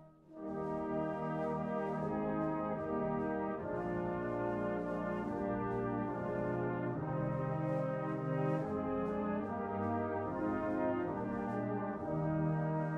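A slow hymn tune played as held chords with a brass-like sound, the chords changing every second or so, with a brief break between phrases right at the start.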